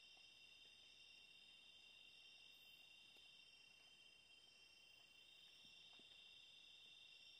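Faint, steady chorus of night insects, a constant high-pitched trilling, with a few faint ticks.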